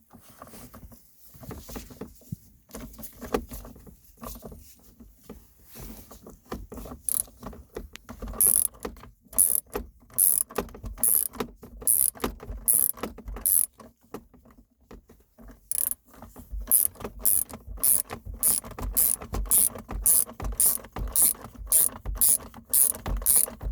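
Hand ratchet wrench clicking as it runs down and tightens a shifter-assembly mounting bolt, the clicks uneven at first, then steady strokes that quicken to about two a second.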